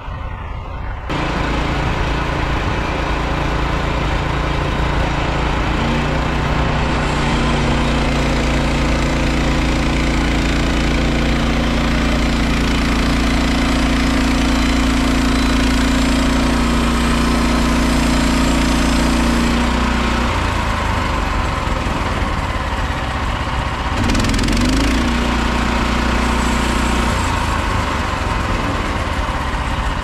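Petrol engine of a Frontier portable band sawmill throttling up about a second in and running steadily under load as the band blade cuts along a Scots pine log. The engine note changes around twenty seconds in, rises briefly, then drops lower near the end.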